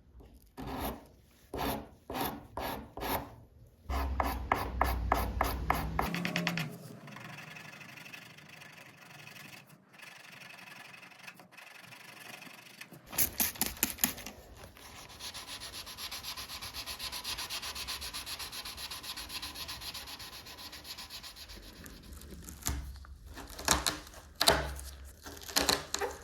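Sandpaper scrubbing over cured fiberglass and resin on a surfboard repair, the final sanding of the hotcoat. It starts as separate back-and-forth strokes, runs as a long steady scratching stretch in the middle, and returns to separate strokes near the end.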